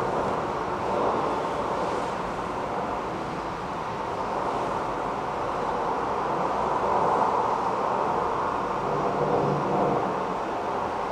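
A steady rumbling noise that swells and eases gently in loudness, with no distinct knocks or strikes standing out.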